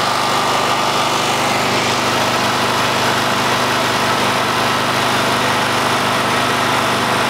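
Portable MAF Pro 5000-watt petrol generator running steadily under load, powering a soft-serve ice cream machine: an even engine hum that doesn't change.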